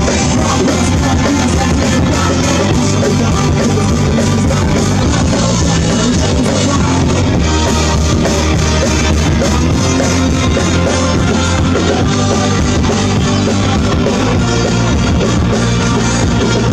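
Live rock band playing loud through outdoor PA speakers: electric guitar and drum kit in a continuous, steady stretch of a song.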